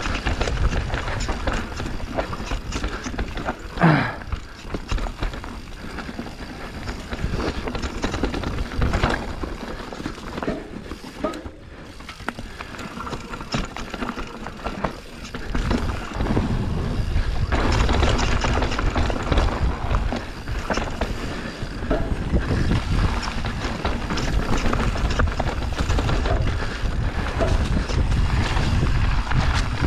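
Radon Jab enduro mountain bike descending a dirt trail: tyres rolling over dirt, roots and leaves, with the bike's chain and frame rattling and knocking over the bumps. There is a brief squeak about four seconds in, and the rolling noise grows louder about halfway through as the rider picks up speed.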